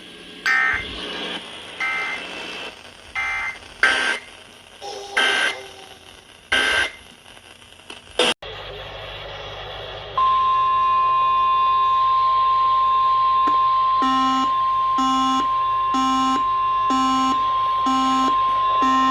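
Weather radio alert signalling: short warbling SAME digital data bursts come through radio static several times in the first eight seconds, then cut off. About ten seconds in, the steady 1050 Hz NOAA Weather Radio warning alarm tone begins. From about fourteen seconds a beep repeats about once a second over the tone.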